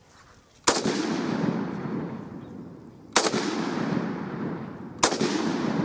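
Three rifle shots from a Springfield Armory M1A semi-automatic in .308 / 7.62x51 NATO, about two and a half and then two seconds apart, each followed by a long rolling echo.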